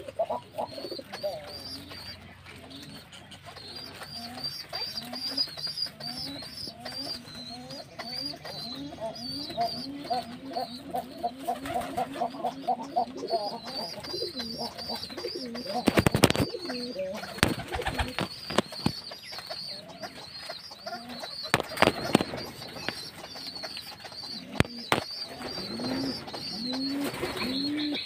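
Doves cooing in repeated low, rising-and-falling phrases, with a thin high bird chirping steadily above them. A few sharp clicks stand out in the second half.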